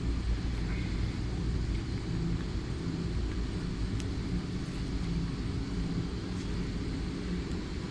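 Steady low rumble of background noise, with one faint click about four seconds in.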